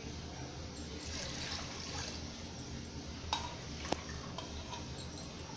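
Coconut milk pouring from a steel vessel into an aluminium pressure cooker of tomato masala, a steady liquid splashing and trickling. Two light metal clinks come near the end.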